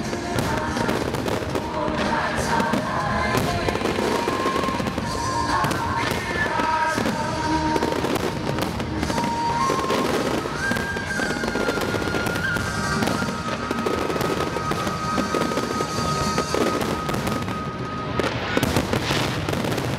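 Fireworks display: aerial shells bursting in a dense, continuous barrage of bangs and crackling. Music plays underneath, with held notes through most of it.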